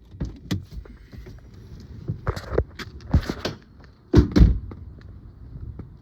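A series of irregular knocks and thumps over a low rumble, the loudest two coming close together about four seconds in.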